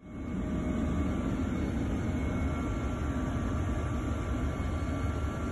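Steady engine drone heard inside a patrol aircraft's cabin: a dense, even low rumble with a few faint, steady whining tones above it.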